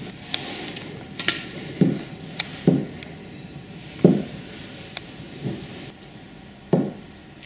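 Glue stick being rubbed over the back of a postcard lying on a tabletop: a string of short dull knocks with light rubbing between them, the loudest knock about four seconds in.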